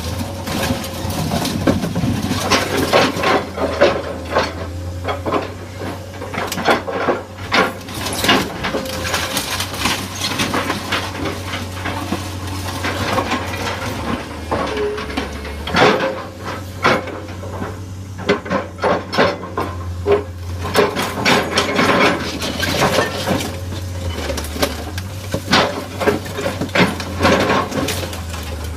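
Excavator crushing and tearing apart a car: repeated metal crunches, clanks and bangs, many in quick clusters, over the steady low running of the excavator's engine.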